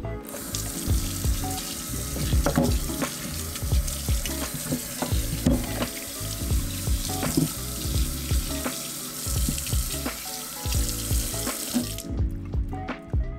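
Kitchen tap running into a stainless-steel sink while carrots and potatoes are rinsed and rubbed under the stream; the water starts right away and is shut off suddenly about a second before the end. Background music plays underneath.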